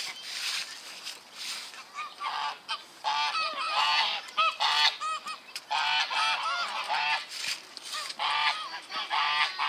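Geese honking, many short calls repeated and overlapping, starting about two seconds in.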